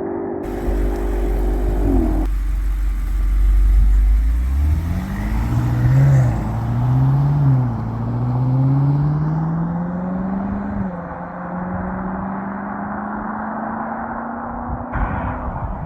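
BMW X5 M's twin-turbo V8, fitted with a titanium valved exhaust, accelerating: the engine note climbs and drops back about three times as the gearbox shifts up, then settles into a steadier, slowly rising drone.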